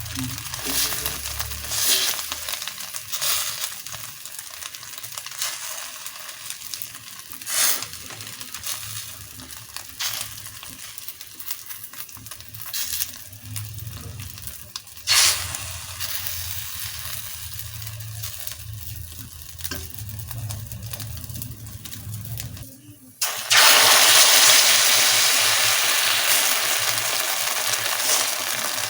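Oil hissing in a pan with a low hum and scattered sharp clicks of a utensil, then, about 23 seconds in, a sudden loud sizzle that slowly fades: beaten egg poured into hot oil for an omelette.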